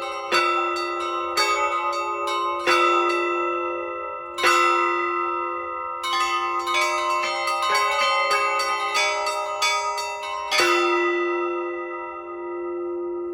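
Church bells rung by hand in the Russian zvon style: quick strokes on the small bells over heavier strokes of larger bells. The last strokes come about ten and a half seconds in, and the bells then ring on and fade.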